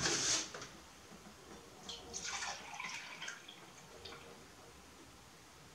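Milk pouring from a plastic gallon jug into a glass measuring cup: a soft splashing trickle about two seconds in that lasts roughly a second, after the tail of a louder clatter at the start.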